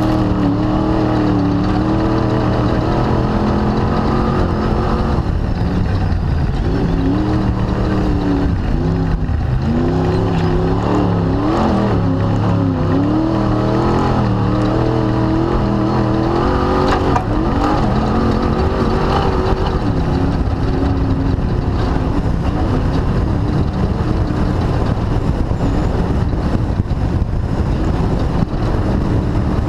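An off-road race vehicle's engine heard from on board, its pitch rising and falling again and again as the throttle is worked, over a constant rush of wind and driving noise. About halfway through, the engine tone fades back and the rushing noise takes over.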